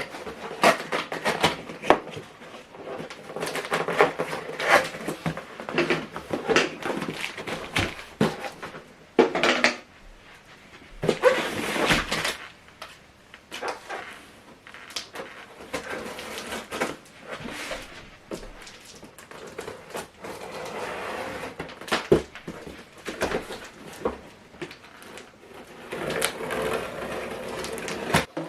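A cardboard box being opened and its packaging handled: irregular rustling and scraping with scattered knocks and clicks, heaviest about 11 to 12 seconds in.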